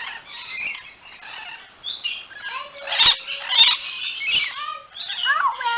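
Parrot calling in a run of short chirps, squeaks and squawks, some gliding up and down in pitch, busier near the end, with a single sharp click about three seconds in.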